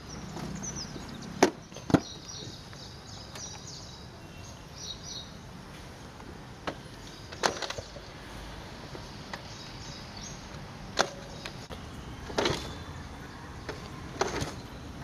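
A scooter being handled as a box is loaded into it: a few sharp knocks and clacks, two close together near the start and then single ones every few seconds, over a steady background hiss.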